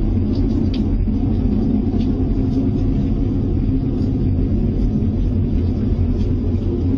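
Loud, steady low droning rumble, one of the unexplained 'strange sky sounds' that people reported hearing and recording around the world.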